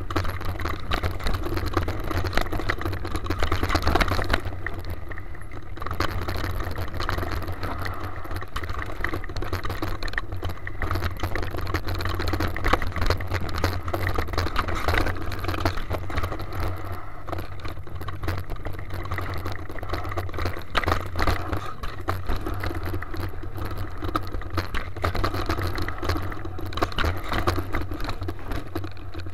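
Mountain bike riding fast down a rough dirt trail: a constant clatter and rattle as it jolts over roots and rocks, with tyre noise and a steady low rumble.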